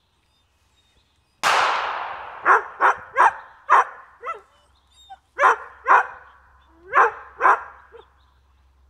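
A single gunshot, fired to test a dog's reaction to gunfire, rings out about a second and a half in and fades over about a second. A dog then barks about nine times, mostly in quick pairs.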